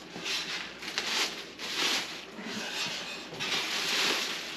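Clear plastic packaging bag crinkling and rustling in irregular bursts as it is handled and pulled off a metal stove frame.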